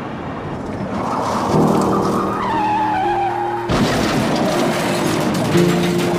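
Car tyres screeching in a skid, then a sudden crash of impact about halfway through, over sad background music.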